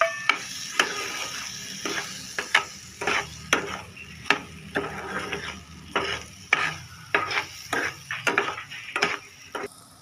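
Metal spoon stirring boiled amla pieces and granulated sugar in a steel frying pan, scraping and clinking against the pan about twice a second over a faint sizzle. The stirring stops just before the end.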